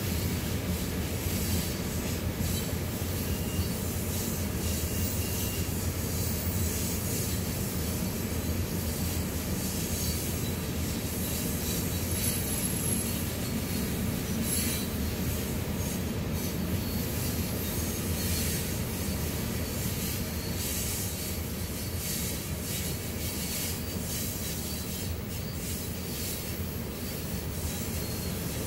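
Loaded coal train's hopper cars rolling past: a steady rumble of steel wheels on rail, with brief high wheel squeals and light clicking over the rail.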